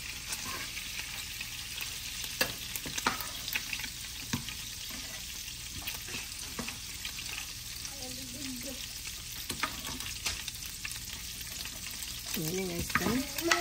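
Hot meat fat sizzling steadily in a frying pan on the stove, with scattered crackles and pops.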